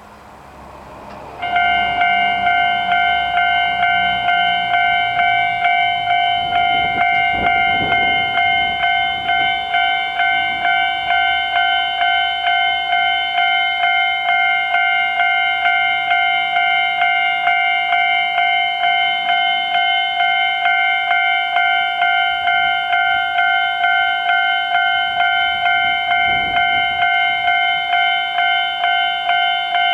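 Japanese railway level-crossing warning alarm starting about a second and a half in, then sounding a steady 'kan-kan' at about two strokes a second. This crossing is known to start ringing even when no train passes.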